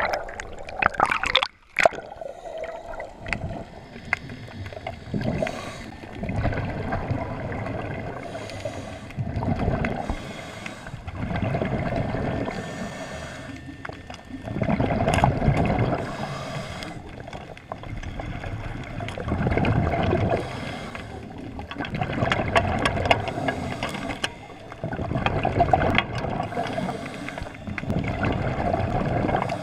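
Water heard through an underwater camera: splashing in the first two seconds, then muffled bubbling and gurgling that swells and fades every four to five seconds.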